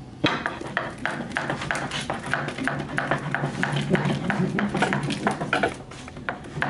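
Small block of wood rolling a braided deer-hide whip lash back and forth on a wooden tabletop: a quick, irregular run of knocks and scrapes over a steady low hum, easing off briefly near the end.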